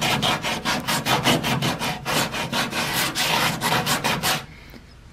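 Hand sanding block with 100-grit sandpaper scraping back and forth over hardened body filler on a truck's sheet-metal corner panel, in quick even strokes about five a second. It stops near the end.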